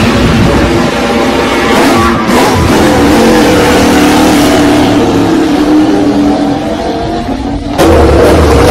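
Ducati Desmosedici MotoGP bike's V4 engine running, revved briefly about two seconds in, then climbing slowly in pitch as the bike pulls away. Near the end the sound cuts abruptly to another engine running louder.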